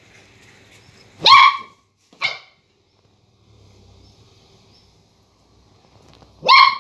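Border collie puppy barking three times at a lemon wedge it is seeing for the first time: a bark about a second in, a shorter one just after, and another near the end.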